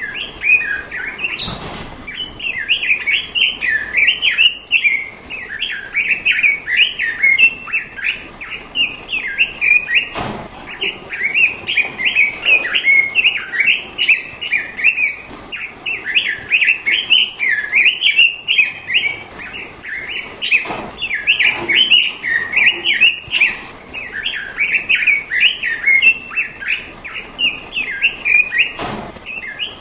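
A cage songbird singing a continuous, rapid chirping and warbling song, as on a 'master' recording played to train kept songbirds. A faint sharp click falls about every nine to ten seconds under the song.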